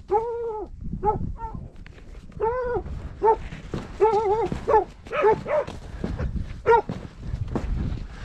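A dog barking repeatedly, about a dozen barks in irregular bursts, some drawn out and others short and quick in pairs.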